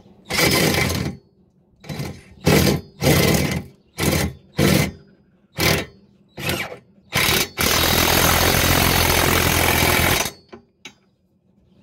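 Cordless impact wrench hammering trailer-hitch mounting bolts tight under a car: about ten short bursts, then one long burst of about two and a half seconds near the end.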